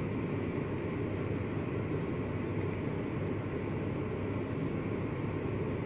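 Steady low rumble with a light hiss inside a Volkswagen Touareg's cabin: the background noise of the parked car, with no clear pitched note and no sudden sounds.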